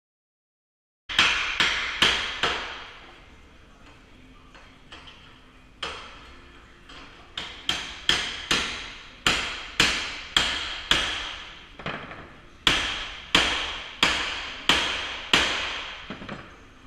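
Hammer driving a steel wedge into the gap at the edge of a steel security door, opening it up for a forced-entry leverage test. Sharp metallic blows with a short ring: four quick strikes about a second in, then after a pause a steady run of strikes about one every 0.6 s.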